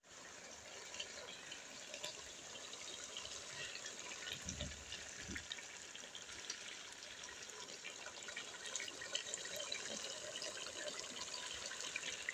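Chicken and tinde (apple gourd) sizzling and crackling in ghee in an aluminium pot, a steady frying sound. The masala is well fried and the ghee has separated. A couple of soft low bumps come about halfway through.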